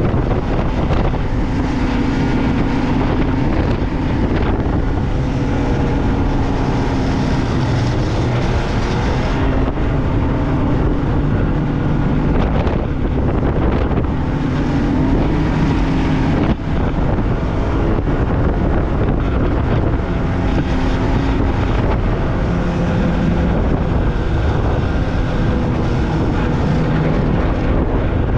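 Snowmobile running along a trail, its engine note rising and falling a little with the throttle, under heavy wind noise on the microphone.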